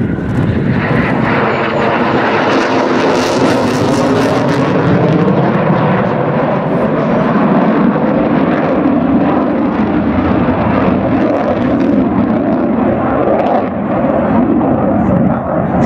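Display aircraft flying past, the loud engine noise holding steady, with a brighter, harsher stretch a few seconds in.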